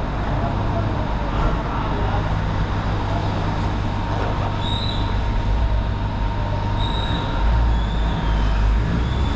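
Jialing 150 cc motorcycle engine running steadily, with a few faint high chirps over it.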